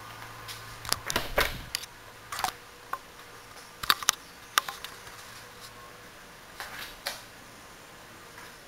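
Handling noise from a handheld camcorder as it is carried and panned around a room: irregular sharp clicks and knocks, bunched about a second in and again about four seconds in, over a faint steady hiss.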